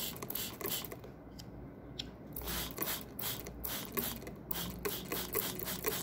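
Cleaner sprayed onto a laptop's blower-type cooling fan in many short hissing bursts, with one longer burst about two and a half seconds in.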